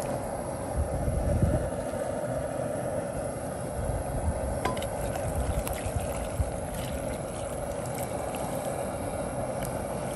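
Pork broth poured from an aluminium saucepan splashing into a rice-cooker pot of rice, over a steady background hum and a low irregular rumble.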